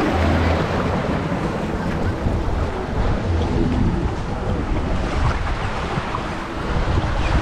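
Water rushing down an open waterslide channel under an inflatable ride tube as it slides, with wind buffeting the microphone. The rush is steady throughout.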